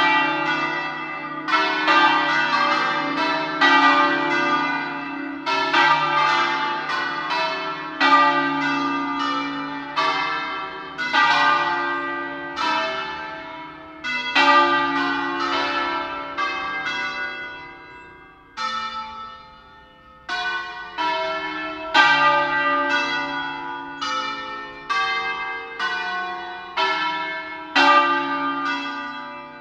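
Church tower bells ringing in turn: several bells at different pitches struck one after another, about one to two strokes a second, each stroke ringing on and fading. The strikes thin out briefly about two-thirds of the way through, then resume.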